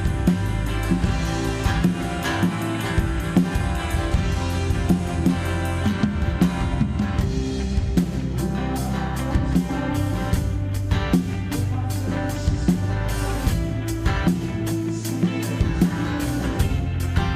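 Band music with drum kit and guitar, steady beat, no singing.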